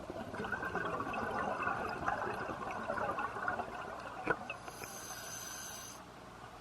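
Scuba diver's exhaled bubbles bubbling and crackling from the regulator for about four seconds, with a sharp click near the middle. Then comes a short high hiss of inhalation through the regulator.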